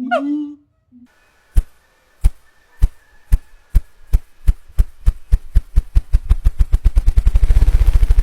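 An animal's drumming display: a series of low thumps that starts slowly, about one every half second, and speeds up steadily into a rapid roll, growing louder toward the end. A short honking call sounds at the very start.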